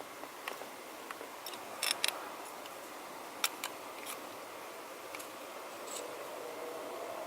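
A few light, sharp clicks and taps over a steady hiss, with a close pair of clicks about two seconds in.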